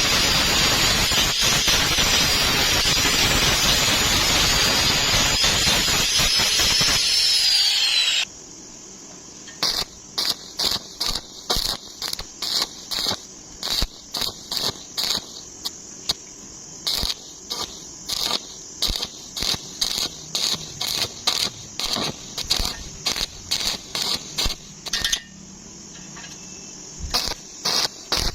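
A power tool runs loudly and steadily with a high whine, which falls away before it cuts off about eight seconds in. Then comes electric arc welding in short bursts of crackling, about two a second with a couple of brief pauses, as in stitch or tack welding.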